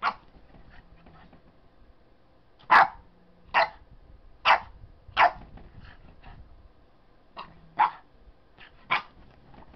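Boston Terrier puppy barking in short, sharp yaps, about eight of them in irregular bursts with quiet pauses between.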